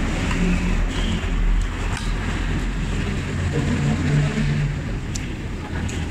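Low, steady rumble of road traffic going by, with a few light clicks of a spoon and fork against a plate.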